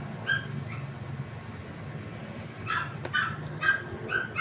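An animal's short, high-pitched yelps: one near the start, then a quick run of them, several a second, in the last third.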